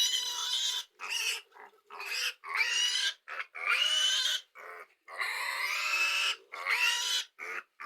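Pigs squealing over and over: about seven loud, high cries of half a second to a second each, some rising in pitch.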